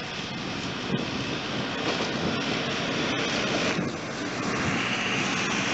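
Hi-rail weed-spraying truck running and rolling past on the rails, with wind buffeting the microphone. A higher hiss grows louder near the end.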